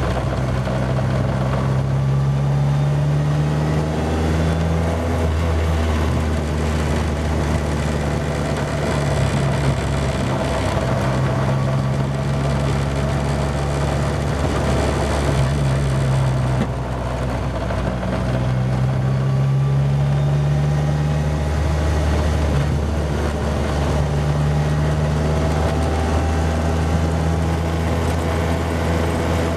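Formula Ford single-seater's engine heard from the open cockpit, running steadily at moderate revs. Its pitch rises and falls repeatedly with throttle and gear changes, with a brief dip in level about two-thirds of the way through.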